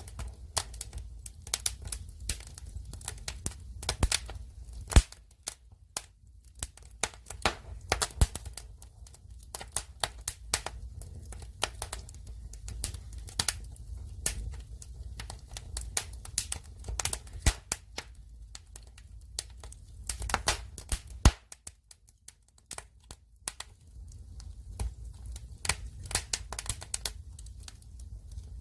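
Wood fire burning: firewood crackling with irregular sharp pops and snaps over a low rumble of flame, a few pops louder than the rest.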